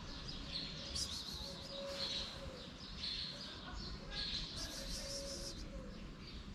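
Small birds chirping, with quick high twittering that comes in clusters twice, over a steady background hiss.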